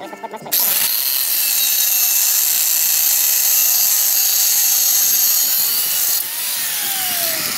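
An electric angle grinder grinding a welded steel-rod piece. It starts about half a second in with a steady, loud, hissing grind. Around six seconds in the grinding eases and the motor's whine falls in pitch.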